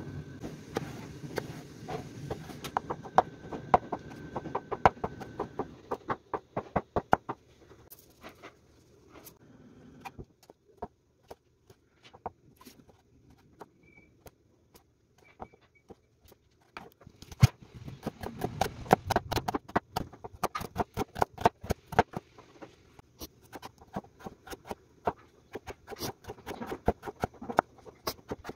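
Kitchen knife chopping vegetables on a wooden cutting board: quick runs of sharp knocks as the blade strikes the board. The knocking thins out for a few seconds in the middle, then comes back in fast runs.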